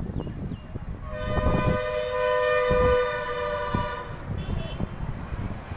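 A vehicle horn sounds one long, steady blast of about three seconds, starting about a second in, with two notes sounding together.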